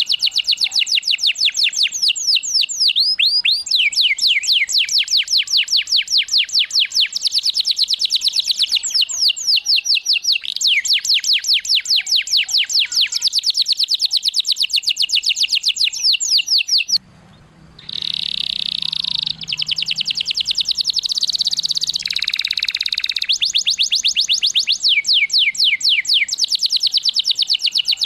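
Domestic canary singing long rolling trills of rapid, repeated down-sweeping notes, about ten a second, changing speed from roll to roll. About 17 s in the song breaks off for a moment, resumes with a stretch of buzzier held notes, and then the fast trills return.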